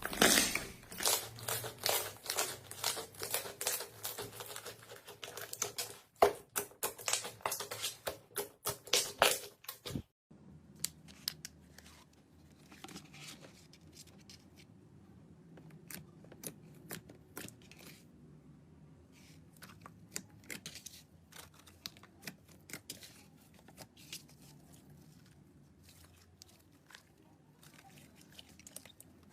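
Slime being squeezed and worked by hand, giving a dense run of crackling clicks and pops for about ten seconds. After a sudden cut it goes on as fainter, scattered clicks and pops.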